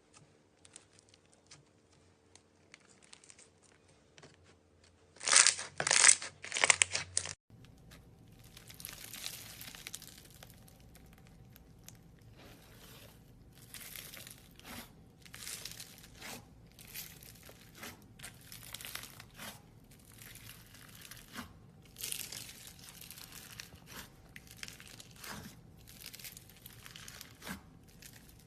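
Slime being handled, pressed and pulled apart, making a series of crinkling, crackling and tearing sounds. There is a louder flurry of crinkling about five to seven seconds in, and after it a long run of shorter crackles.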